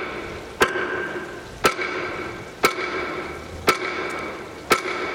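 Hammer blows on a metal manhole cover, five strikes about a second apart, each ringing briefly after the hit.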